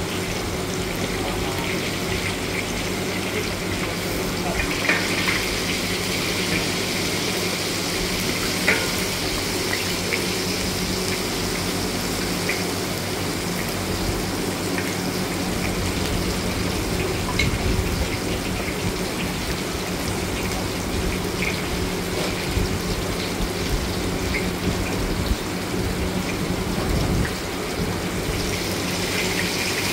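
Shrimp cakes deep-frying in a wok of hot oil: a steady sizzle, with a few light clicks of metal tongs against the wok.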